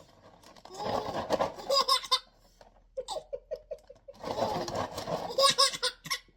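A baby belly-laughing in repeated bursts of short 'ha' pulses, alongside two bouts of dry cereal rustling and rattling, about a second in and again about four seconds in.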